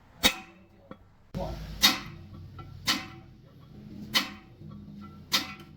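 A hammer striking steel, about one ringing blow a second, five blows in all. A low steady hum comes in about a second and a half in.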